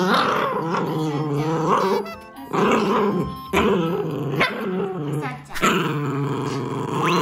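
An adult black Shiba Inu and a Shiba Inu puppy growling at each other, mouth to mouth, in four long growls with short breaks between them, the puppy copying the older dog's growl. Background music plays underneath.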